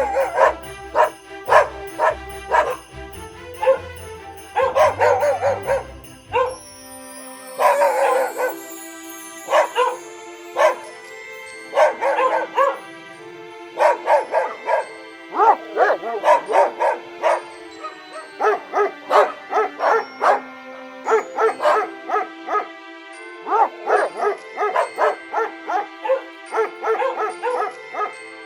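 Dog barking repeatedly in quick runs of short barks and yips, over background music with steady held notes.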